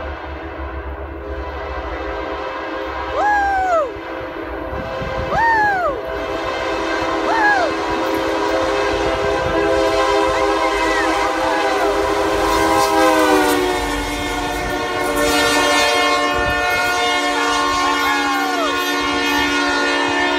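Caltrain train horn held in a long blast as the train approaches and passes, its pitch dropping about thirteen seconds in as it goes by, then the noise of the train rolling past. Several short excited whoops ring out over the horn.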